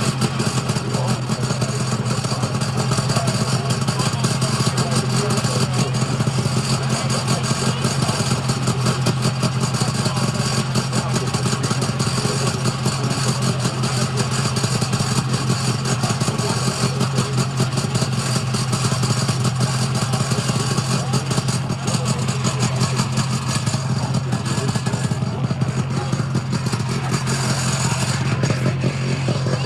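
Off-road ATV engine running steadily at an even pitch.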